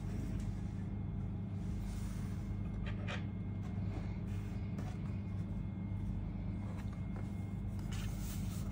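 Steady low room hum with faint rustling and a couple of soft clicks as a thin protective sheet is peeled off a laptop's keyboard and the laptop is handled.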